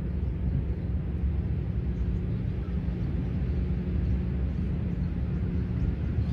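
Steady low rumble of open-air background noise, strongest in the deep bass, with no distinct event standing out.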